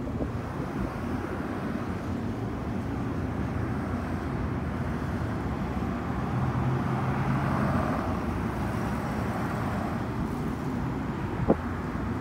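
Road traffic going by, with a vehicle passing and swelling louder in the middle, and a single sharp click near the end.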